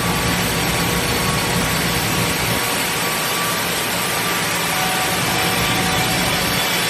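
Steady mechanical running noise of a machine shop, with faint steady whines over an even hiss. A low rumble drops away about two and a half seconds in.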